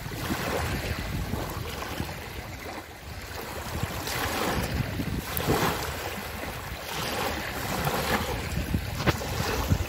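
Small lake waves lapping and splashing over a shallow shore, swelling and washing in every few seconds, with wind rumbling on the microphone.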